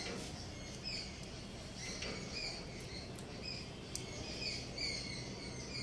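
Small birds chirping: short, high, slightly falling notes repeated about twice a second over a faint low background rumble, with a soft click about four seconds in.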